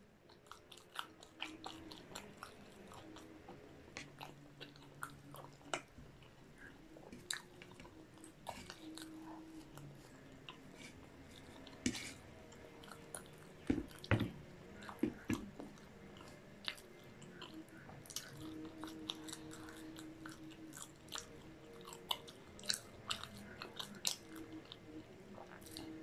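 Close-miked chewing of a fried-chicken tortilla wrap, with many small wet mouth clicks. A cluster of louder knocks and rustles comes about halfway through as the wrap is handled.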